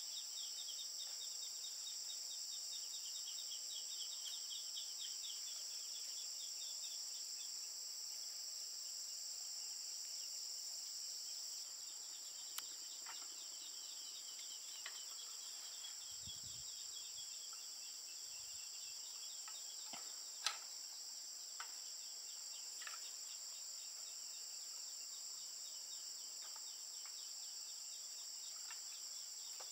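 Insects droning steadily in two high-pitched bands, with a rapid pulsing insect trill over them twice, early on and again about twelve to seventeen seconds in. A few sharp knocks stand out, the loudest about twenty seconds in.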